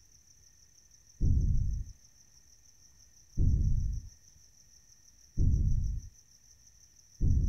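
Deep low booms, each about half a second long, repeating slowly about every two seconds, four in all, over a steady high chirring of crickets.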